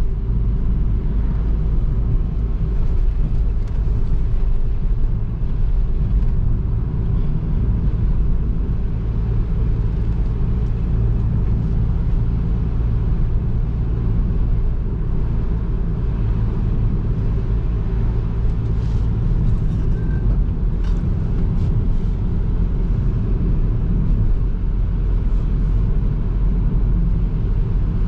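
Nissan NV200's 1.5 dCi four-cylinder diesel engine running while the van is driven at a steady pace, with a constant low rumble of engine and road noise.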